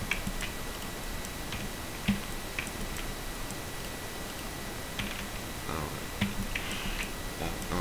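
Scattered clicks of a computer keyboard and mouse, a dozen or so separate taps at irregular intervals, over a faint steady high-pitched tone.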